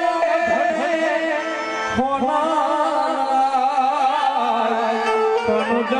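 Gujarati dayro music: a voice sings a wavering, ornamented melodic line over steadily held instrumental notes.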